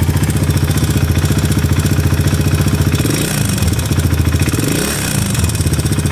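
Four-stroke enduro motorcycle engine idling with a fast, even clatter, its revs wavering briefly about three seconds in and again about five seconds in. The owner likens the knock to valve noise from valve clearance and hears it grow, with a crackle from the cylinder head, at the slightest rise in revs.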